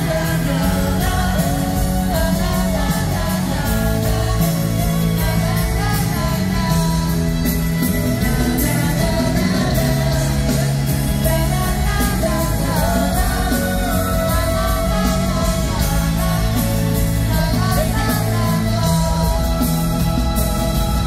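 Live pop-rock concert music: a full band with several male singers, amplified through an arena's sound system and heard from the audience seats, loud and steady throughout.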